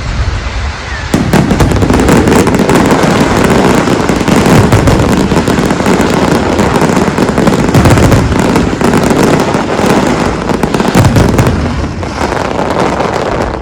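Fireworks display: a dense, continuous barrage of bangs and crackles with deep booms, thickening sharply about a second in.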